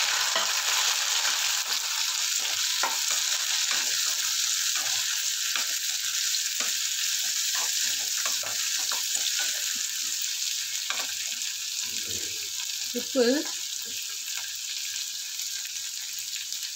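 Tomatoes, onions and garlic sizzling in hot oil in an aluminium kadai, with a wooden spatula scraping and knocking against the pan as they are stirred. The sizzle eases slightly toward the end.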